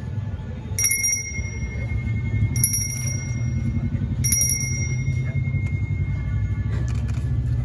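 A Hindu priest's hand bell (genta) rung in three short shakes, less than two seconds apart, each leaving a high ringing tone that carries on, over a low steady background rumble.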